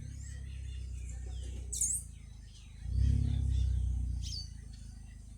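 Small wild birds chirping and calling, with sharp high chirps about two seconds in and again near four seconds. Underneath, a low rumble swells twice and is the loudest sound.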